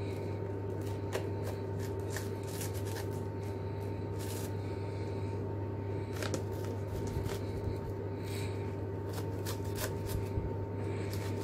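Knife cutting through crisp baked kunafa pastry, giving a scattered run of dry crackling crunches over a steady low hum.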